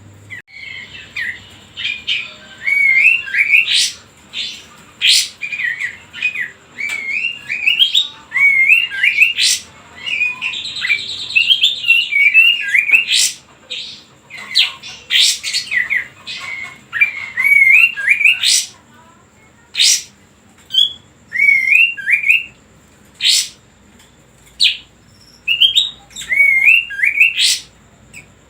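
Kapas tembak songbird singing: fast series of short wavering chirps interleaved with sharp, high whistled sweeps, delivered in bursts with brief pauses between them.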